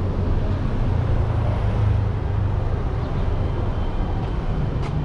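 Motorcycle running, a steady low rumble, with a short click near the end.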